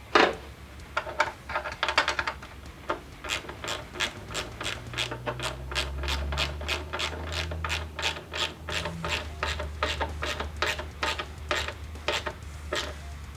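Hand ratchet tightening a bolt and nut: sharp ratcheting clicks, a few at first, then a steady run of about two to three clicks a second as the handle is swung back and forth.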